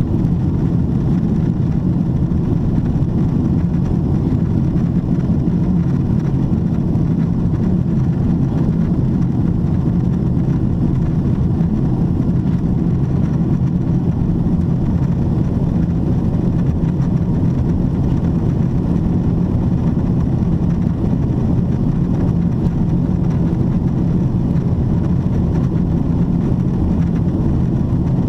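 Steady low cabin rumble inside a Boeing 777-300ER airliner in descent, the mix of airflow over the fuselage and engine noise heard at a window seat, even throughout with no changes.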